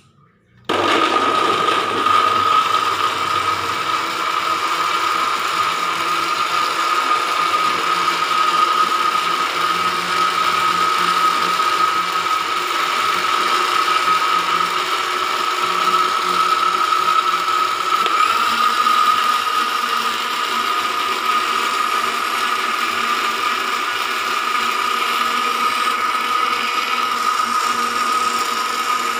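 Electric blender switched on about a second in, then running at a steady speed: a loud, even motor whine with a strong high tone and a rattling, grinding edge.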